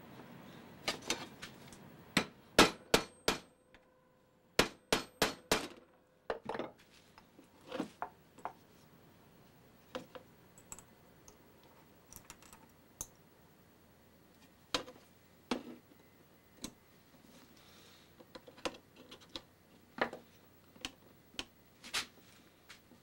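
Sharp metallic clicks and knocks of a screwdriver and the steel machete being handled on a wooden workbench while the handle screws are fitted. Quick runs of strikes come about one to three seconds in and again about five seconds in, the loudest near the start, then single clicks spaced a second or more apart.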